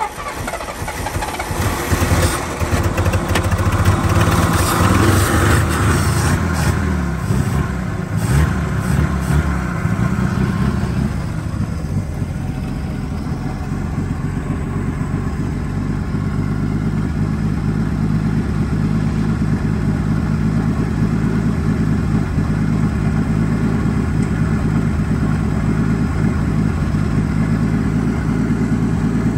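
Old 1954 Dodge truck engine catching and revving unevenly for about the first ten seconds, then settling into a steady idle.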